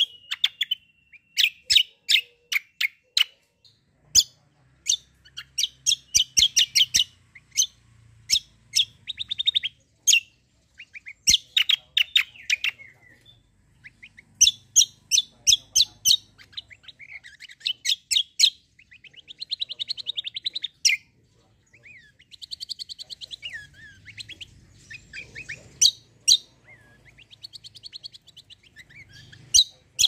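Caged kecial kombo songbird singing in loud, rapid phrases of chirps and trills, one burst after another with short pauses between.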